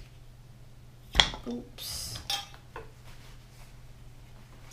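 A glass jar and its metal lid clinking and knocking as the jar is opened, with one sharp clink about a second in and a few lighter clicks after it.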